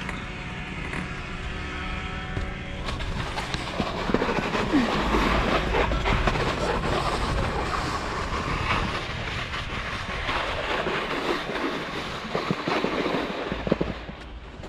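A steady mechanical hum from a chairlift, then, about three seconds in, a snowscoot's skis sliding and scraping over packed snow as it rides downhill, with wind rumbling on the action camera's microphone.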